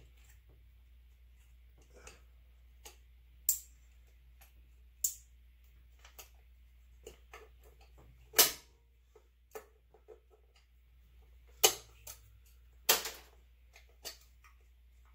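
Irregular sharp clicks and knocks of hands working in an engine bay, unplugging plastic electrical connectors and pulling hoses off the intake manifold. The loudest come about three and a half, five, eight and a half, eleven and a half, and thirteen seconds in, over a faint low hum.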